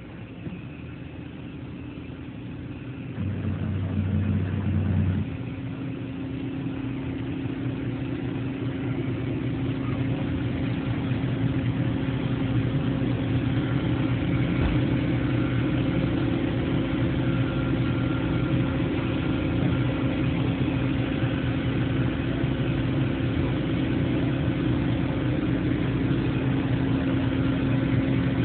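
Toyoda FA400 horizontal machining center running: a steady machine hum with a held tone, growing louder over the first ten seconds or so, with a louder low rumble for about two seconds a few seconds in.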